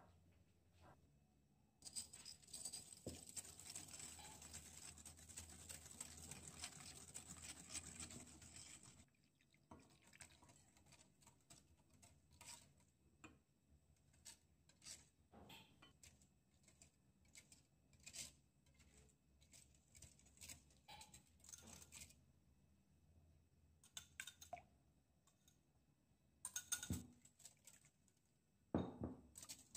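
Wire whisk beating egg yolks for custard filling in a glass bowl: a fast, dense clicking of the wires against the glass for about seven seconds, then scattered taps and light stirring, and two short bursts of brisk whisking near the end.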